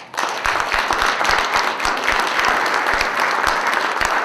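Audience applauding: many hands clapping in a dense, steady run that sets in right at the start.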